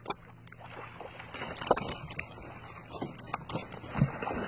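Splashing and dripping water as a fishing net with fish in it is hauled hand over hand over the side of a small boat, with scattered knocks and thuds on the boat; a louder knock comes near the middle and another near the end.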